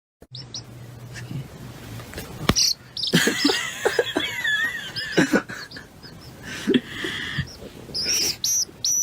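High animal chirps: a couple of short ones about half a second in, a warbling run of wavering calls in the middle, and a quick series of short high chirps near the end.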